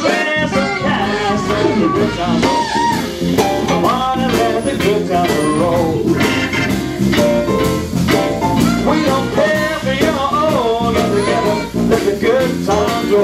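A live band playing an upbeat blues number: drums, bass guitar, electric guitar and keyboard, with a bending lead line on top.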